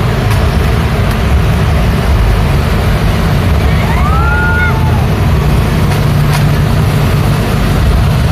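Street traffic of cars and motor scooters passing through an intersection: a steady low engine rumble with tyre noise. About four seconds in, a short whistling tone rises and holds for under a second.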